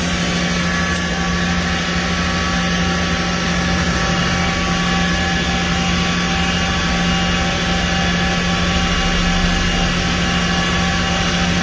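Mazak VCN 410A CNC vertical machining center running: a steady, loud mechanical hum with several steady higher whining tones over it, unchanging throughout.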